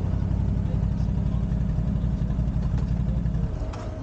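Quad bike engines idling, a steady low rumble that drops off about three and a half seconds in.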